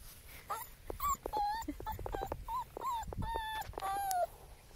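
German Shepherd puppy whining: a run of short, high whimpers, the last two longer and drawn out.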